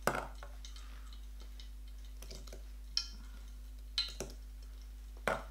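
Metal spoon clinking against a glass mixing bowl while stirring thick red bath gel: about half a dozen separate light clinks at irregular spacing.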